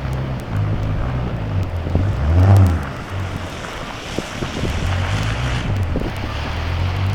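Blizzard wind buffeting the microphone: a steady low rumble that swells to its loudest about two and a half seconds in.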